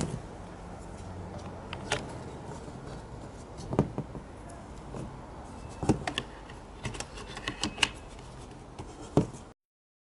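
Hard plastic puzzle pieces knocking and clicking together as the cubies of an 18 cm cube are handled and fitted onto its modified core. About a dozen scattered sharp clicks sound over a steady low background noise.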